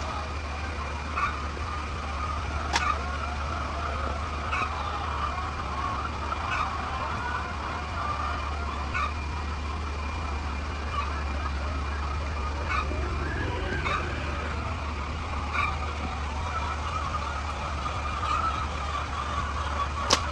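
A steady mechanical hum with a wavering higher drone, a faint steady whine, and light clicks every second or two.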